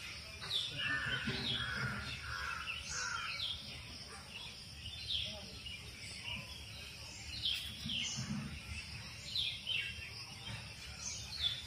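Birds chirping: short, falling calls repeated again and again, over faint background noise.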